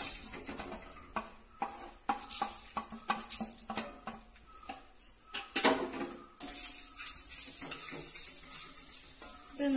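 A spoon stirring and scraping grated coconut as it roasts in a pan, with repeated clinks and knocks of the spoon against the pan over a faint sizzle. The loudest knock comes a little past halfway.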